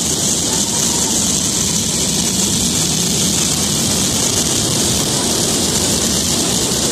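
Fireworks going off continuously: a steady, dense rush of crackling and hissing from spark fountains and low bursts, with no single bang standing out.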